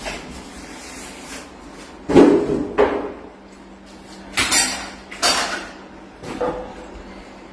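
Hard objects knocking and clattering in four or five short bursts from about two seconds in, as parts and tools are handled while fitting a television onto its swivel mount. A faint steady hum runs underneath.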